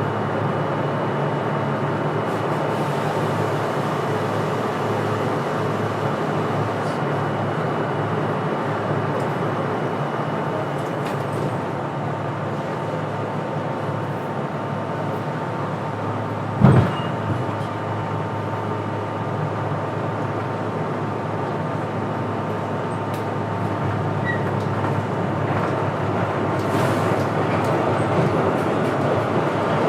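Steady rumble of a train running, with faint steady hum tones and one sharp knock about seventeen seconds in.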